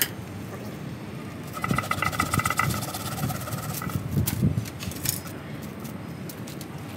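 A mechanical buzz, like a small engine, rattles for about two seconds starting a second and a half in. Around it are scattered clicks, knocks and rustling as gloved hands handle a potted ficus bonsai and its leaves.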